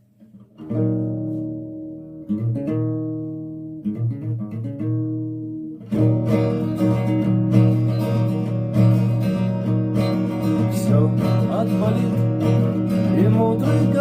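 Acoustic guitar intro: a few chords strummed and left to ring out, then steady rhythmic strumming from about six seconds in.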